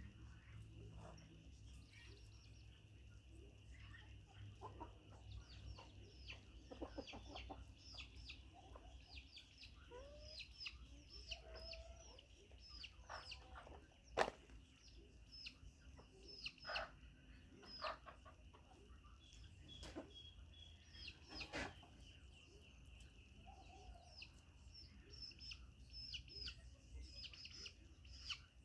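Chickens clucking quietly, with many short high chirps scattered through, over a steady high-pitched drone. A single sharp knock about halfway stands out as the loudest sound.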